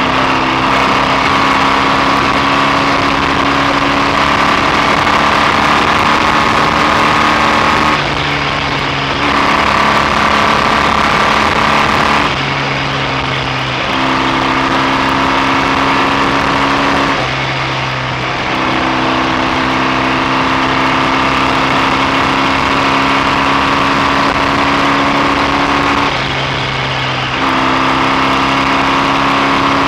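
BSA A65 650 cc parallel-twin motorcycle engine running steadily under way. The engine note dips briefly about four times, then picks up again.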